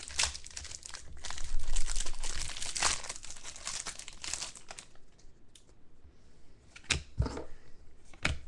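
Clear plastic wrapping around a pack of trading cards crinkling and rustling as it is torn open and the cards are pulled out. It is loudest in the first few seconds and dies down about five seconds in. Near the end there are two short knocks as the cards are handled.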